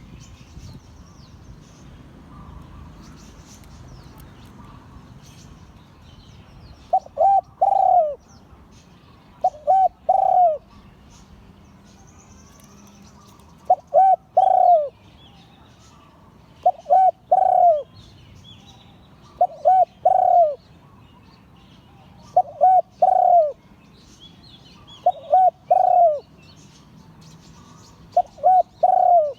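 Spotted dove cooing: a repeated three-note phrase of two short coos and a longer, falling coo, given eight times at intervals of about three seconds, starting about seven seconds in.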